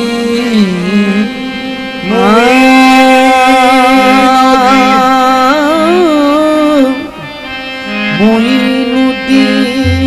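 Qawwali: harmonium accompaniment with a male singer holding one long, wavering note through the middle, other voices joining around it.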